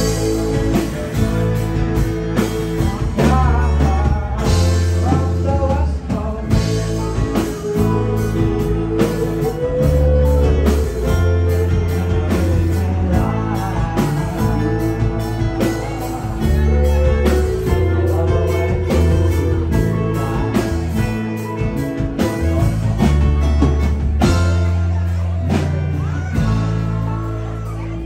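A live band playing a song: lead vocal with harmony singers over acoustic guitars, keys, bass guitar and drums, with a heavy bass line and steady drum beat.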